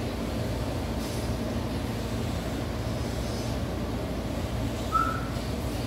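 A steady low mechanical drone, like a running machine, with a single short squeak about five seconds in.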